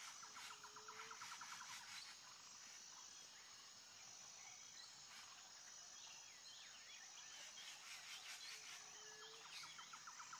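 Near silence: faint outdoor ambience with distant birds chirping and trilling, and a brief low hoot near the start and again near the end.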